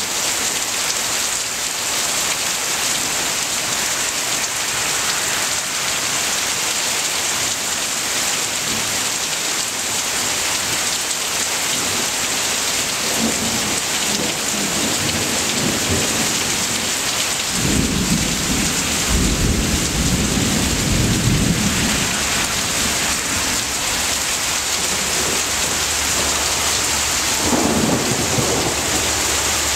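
Heavy downpour falling steadily on trees and foliage, with thunder rumbling in about halfway through: a longer, louder roll lasting several seconds, and a short one near the end.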